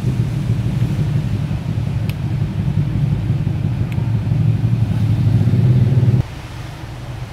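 Steady low mechanical rumble, like an engine running, that cuts off abruptly about six seconds in.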